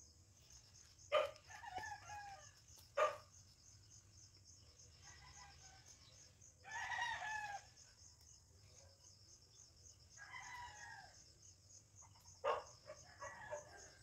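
Roosters crowing now and then, the loudest crow about seven seconds in and fainter ones near the start and past ten seconds, with a few sharp clicks in between.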